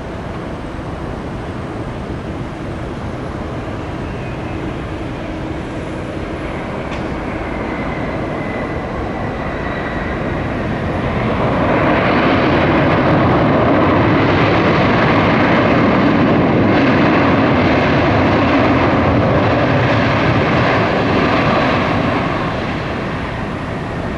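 Airbus A300 cargo jet landing: steady jet engine noise with a faint whine, then about eleven seconds in a much louder rushing noise builds after touchdown. It holds for some ten seconds and eases off near the end, as the engines go into reverse thrust on the landing roll.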